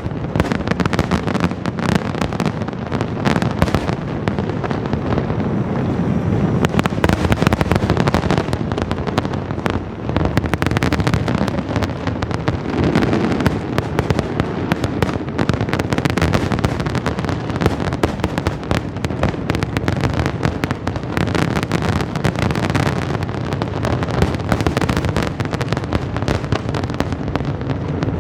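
Dense barrage of fireworks exploding: many bangs and crackles overlapping without a pause.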